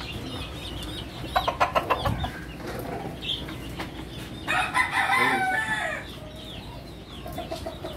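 Gamefowl roosters crowing and clucking. A run of quick clucks comes a little over a second in, then one rooster crows for about a second and a half near the middle, with faint chirping behind.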